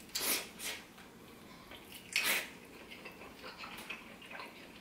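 Eating sounds: a spoon scraping and clicking in a small bowl, with chewing. A few short scrapes, the loudest just after the start and about two seconds in, and smaller ticks after.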